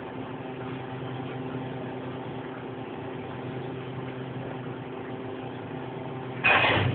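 A sleeping man snoring: one short loud snore near the end, over a steady mechanical hum.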